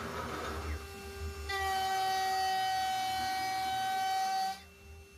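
A 16 mm two-flute BAP300R milling cutter with PCD inserts, on a rebuilt 6040 CNC router, milling aluminium: a rough cutting noise, then about a second and a half in a steady high-pitched ringing tone with overtones takes over for about three seconds and stops abruptly, leaving it much quieter near the end.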